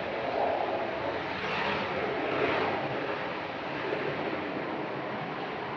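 Jet airliner's engines, a steady rushing noise with no distinct tones, from an airliner landing.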